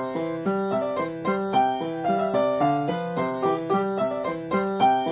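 Solo piano background music, a steady stream of quick notes.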